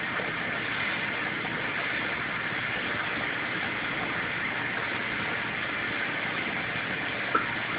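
Steady hum and water noise of an aquarium filter running, with one short click near the end.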